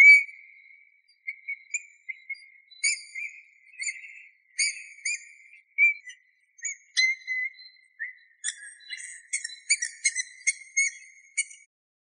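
Eurasian bullfinch singing: a run of short, soft whistled notes at much the same pitch, mixed with brief, thin higher notes that come thicker in the second half and stop just before the end.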